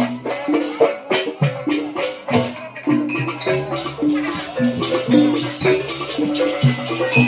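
Live jaranan accompaniment music: a Javanese percussion ensemble playing a steady rhythm of drum strokes over ringing, pitched metal-percussion notes.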